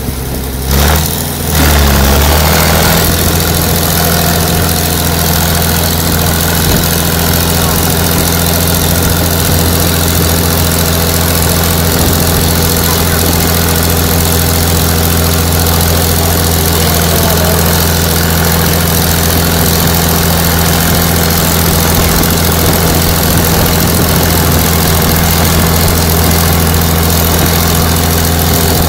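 Diesel engine of an old Volvo road grader working under load, pulling a sled of cement weights. After a couple of brief surges in the first two seconds it settles into a loud, steady run at constant speed.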